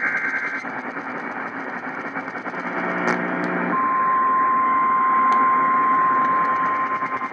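Emergency Alert System activation heard over AM radio static. It opens with the tail of a warbling digital header data burst, then hiss with a brief low buzz and a couple of sharp crackles. About three and a half seconds in, the steady single-pitch 1050 Hz attention tone starts and holds.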